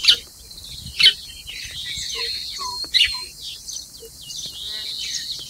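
Birds chirping: sharp high calls at the start, about a second in and about three seconds in, over a steady high background of further calls.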